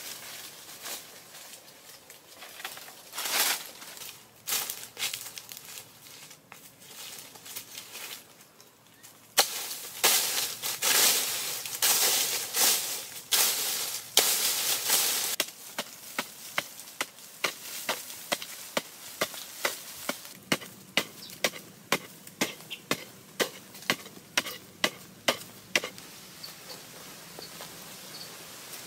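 Rustling and footsteps in leaf litter, then a bladed digging tool striking and scraping dry, stony earth. About a third of the way in it becomes a loud run of scraping and chopping, which settles into steady sharp strikes about two a second before dying away near the end.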